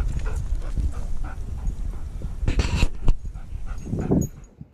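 A dog panting and moving about close by, over a steady low rumble, with one short noisy burst about two and a half seconds in; the sound fades out near the end.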